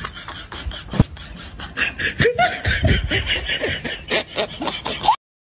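A person laughing in quick, rapid bursts, like a snickering laugh sound effect, that cut off suddenly near the end. A single sharp click comes about a second in.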